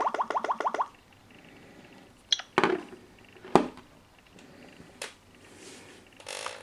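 A rapid trill of about nine short rising tones in the first second, then two sharp knocks about a second apart as two smartphones are laid face down on a wooden table.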